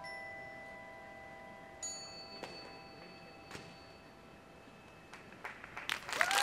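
Last notes of a drumline front ensemble's mallet percussion left ringing and slowly dying away, with one more bell-like struck note about two seconds in. In the final second the audience starts clapping and cheering.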